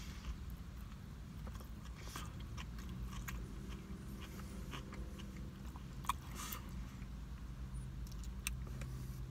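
Close-miked mouth sounds of a man chewing a turkey and provolone sub: wet chewing with scattered lip smacks and clicks. A steady low hum of the car's interior runs underneath.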